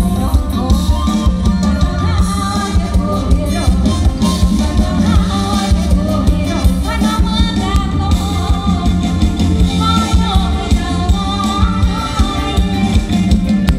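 Live Isan luk thung/mor lam band music: a steady drum beat over heavy bass, with a wavering sung or played melody line.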